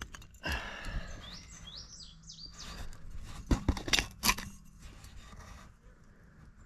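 A glass milk bottle being worked loose from packed dump dirt and debris by hand: scraping, with a few sharp knocks and clicks about three and a half to four seconds in. A small bird chirps a quick run of short high notes about two seconds in.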